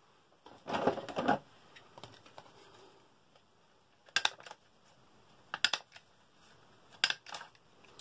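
Handheld stapler punching staples through layered paper and card, three sharp double clicks about a second and a half apart. A brief scuffling sound of paper being handled comes about a second in.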